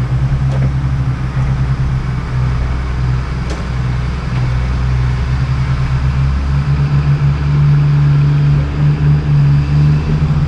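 Off-road vehicle's engine running steadily, growing louder about six and a half seconds in.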